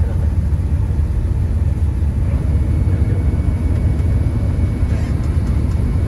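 Claas Lexion combine harvester running, heard from inside its cab as a steady low rumble. The machine is standing still while it starts unloading grain through its auger into a trailer.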